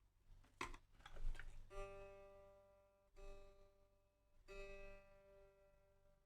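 Guitar's G string plucked three times at the same pitch, about a second and a half apart, each note ringing and fading, after a few handling clicks. This is an intonation check of the 12th-fret note against the harmonic, and the two match.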